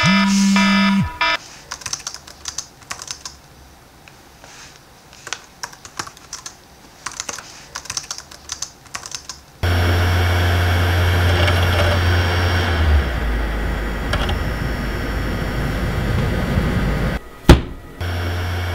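An electronic beeping stops about a second in, followed by about eight seconds of scattered light clicks. A microwave oven then starts running with a loud steady hum that drops lower a few seconds later, broken by one sharp click near the end before the hum resumes.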